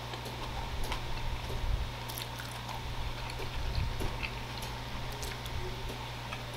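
A person chewing a mouthful of burger close to the microphone: soft, irregular wet mouth clicks and smacks over a steady low hum.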